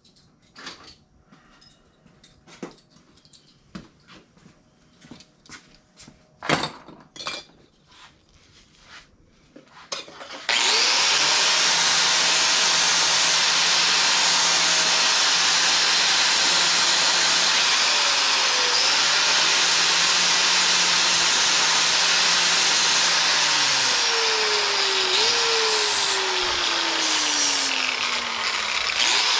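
Handheld power tool switched on about ten seconds in and run steadily, with a whine that falls in pitch here and there as it is pressed into the work. Before that, a few scattered knocks and clicks from tools being handled.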